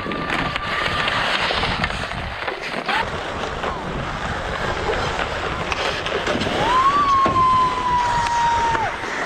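Ice hockey play on an outdoor rink: skate blades scraping on the ice and sticks clacking, with a long held shout near the end.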